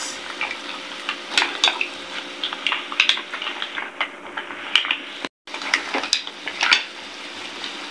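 Mussels and shrimp being stirred with a spatula in a hot pan: irregular clacks of mussel shells knocking against each other and the pan over a steady sizzle. The sound cuts out briefly just after five seconds in.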